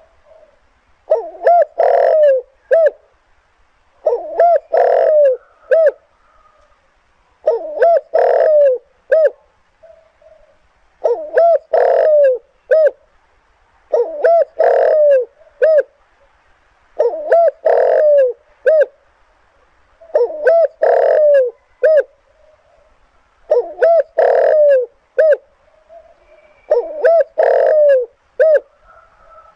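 Spotted dove singing its cooing song: a phrase about every three seconds, each a few short coos around a longer main coo and ending in short closing notes, the 'two trailing notes' style prized in lure birds.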